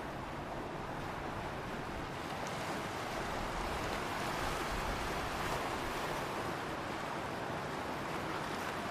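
Ocean waves washing in as a steady surf hiss, swelling a little in the middle.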